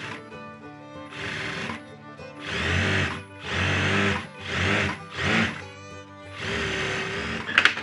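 Sewing machine topstitching a shirt sleeve in short runs of a second or less, starting and stopping about six times, over steady background music. A few sharp clicks come near the end.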